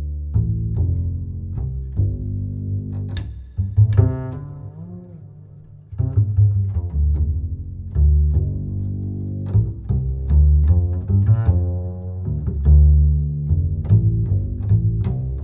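Background music led by low plucked and bowed strings, double bass or cello.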